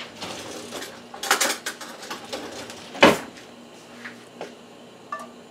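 Kitchen handling noises from a plastic tub of chopped garlic and a metal spoon: rustling, then a flurry of clicks and scrapes, and one sharp knock about three seconds in. A few light clicks follow near the end.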